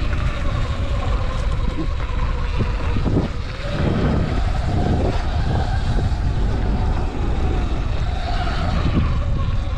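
Sur Ron X electric dirt bike's motor whining, its pitch rising and falling with the throttle, under heavy wind rumble on the microphone.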